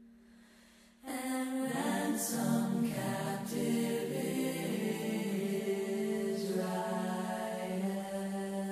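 Soft background music of long, held choir-like voices that comes in about a second in, after a brief near-quiet lull.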